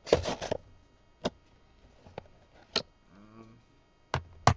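Trading cards and their cardboard box being handled: a short rustle at the start, then a handful of sharp, separate clicks and taps.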